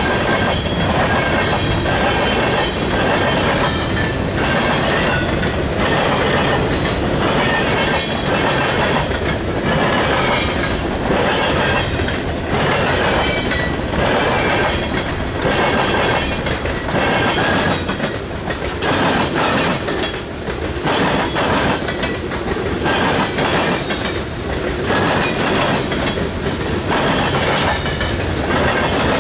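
Union Pacific train's cars rolling past, wheels clacking over the rail joints in a steady, regular rhythm, with a faint high squeal from the wheels.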